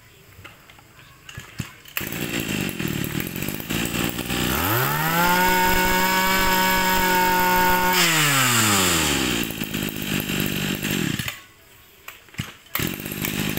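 Stihl FS26 brush cutter's 26 cc two-stroke engine starting about two seconds in and idling. It is then revved to full throttle for about three seconds and drops back to idle. It cuts out briefly near the end and picks up again.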